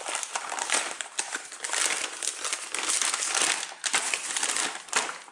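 Brown paper bag crinkling and crackling as it is unfolded and opened and hands rummage inside it, an irregular run of rustles and small clicks.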